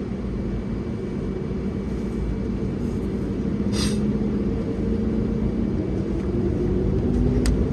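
Airbus A320 on its takeoff roll: a steady low rumble with the hum of its jet engines, growing slowly louder, the engine tones rising in pitch near the end. A short hiss about four seconds in.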